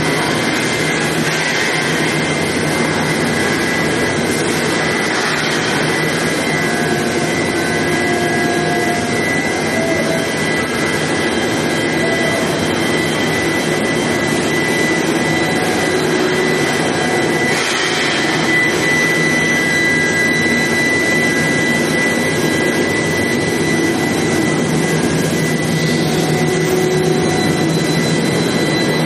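Steady factory noise of an oil drill pipe induction hardening and tempering line: a constant rushing noise with a steady high-pitched whine throughout, and a brief louder rush about two-thirds of the way in.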